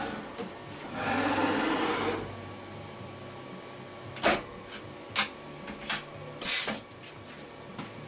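CNC milling machine's power drawbar running for about a second, a short mechanical whirr, during a tool change. Then several sharp clicks and knocks from the tool holder being handled, with a brief burst of noise after the third.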